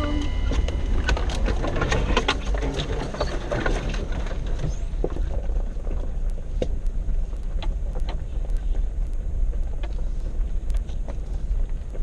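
Off-road vehicle driving slowly along a rough dirt track, heard from a hood-mounted camera: a steady low rumble of engine and tyres with many sharp clicks and knocks as it bounces over the ground. The clicks are thick in the first few seconds, while the track runs through close brush, and thin out after.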